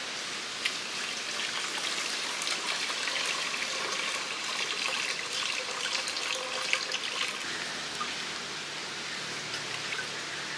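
Water poured from a clay pot into a shallow clay bowl, trickling and splashing steadily.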